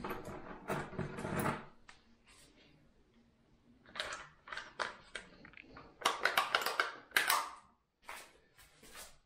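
Hand work on drywall, tools and materials being handled: irregular clusters of scraping, clicks and knocks with short pauses between them.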